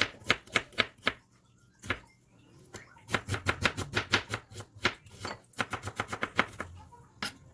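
Knife slicing an onion on a cutting board: a few strikes on the board, a pause of about two seconds, then a steady run of quick cuts, several a second.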